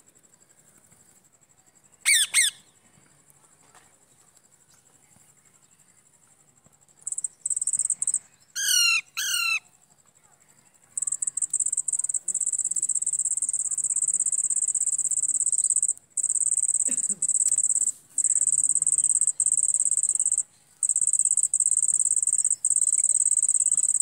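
Parakeets give a single harsh squawk a couple of seconds in, then a quick run of three screeches falling steeply in pitch a few seconds later. A high insect trill is faint at first and grows loud and almost constant from about halfway on, with a few brief breaks.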